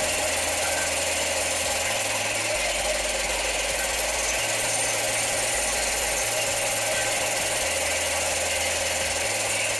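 Cordless impact wrench running continuously under power, a steady mechanical rattle with no break.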